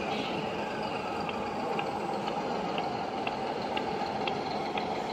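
Steady background noise of a large exhibition hall, with a faint, regular ticking about twice a second starting about a second in.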